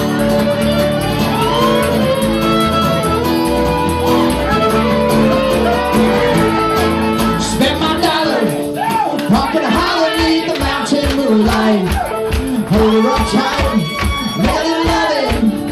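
Acoustic string band playing live, acoustic guitars and fiddle. About halfway through, the playing turns to short, choppy strokes, with voices singing.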